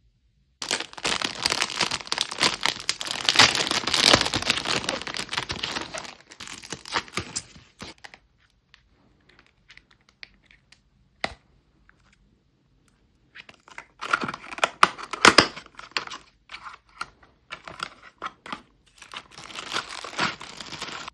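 Packaging being torn open and crinkled by hand, in two long bouts of rustling and tearing, with a lull and a single sharp click between them.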